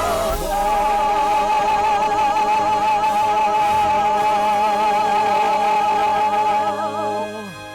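Church singers and accompaniment holding the final chord of a hymn. The voices waver with vibrato over steady instrumental notes, then cut off near the end and die away.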